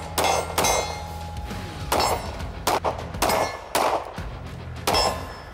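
Springfield Armory Prodigy 1911 DS 9mm pistol fired at steel targets in an uneven string of about eight shots. Each hit on the steel rings with a metallic clang.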